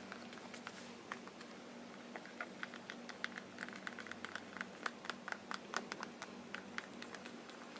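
Stir stick mixing glue and shaving foam for slime in a small container: faint, irregular light clicks and scrapes, several a second.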